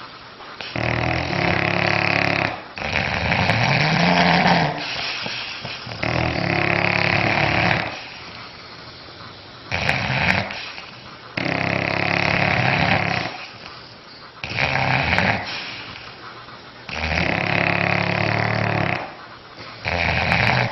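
An animal snoring loudly in a regular rhythm, one buzzy snore about every two to three seconds. One snore near the start bends up in pitch and back down.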